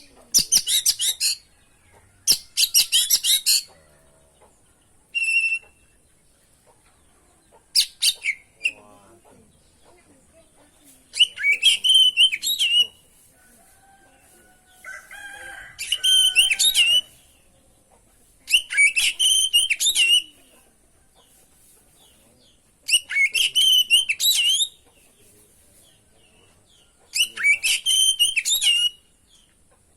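Oriental magpie-robin (kacer) singing in short loud bursts of varied, rapidly changing song, each phrase one to two seconds long and coming every few seconds, with a softer, lower call about halfway through and a faint steady high hiss underneath.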